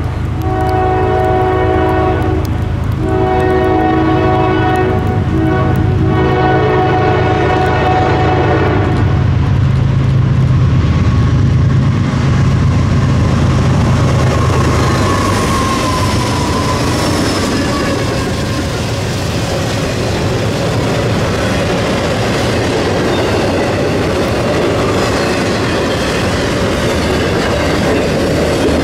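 Norfolk Southern intermodal freight train passing close by. The lead diesel locomotive sounds its multi-note horn in three long blasts that end about nine seconds in, and the locomotives' engines rumble past. Then trailer-carrying flatcars roll by with a steady rush and clickety-clack of wheels over rail joints.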